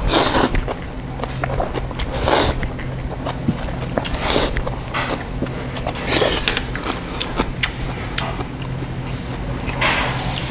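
Thin wheat noodles of janchi guksu being slurped from a bowl: about five noisy slurps roughly two seconds apart, with chewing between. A steady low hum underneath.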